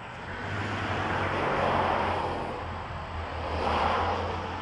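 Road traffic: two vehicles pass one after the other, each a swell of tyre and engine noise that rises and fades, peaking about two seconds in and again near the end.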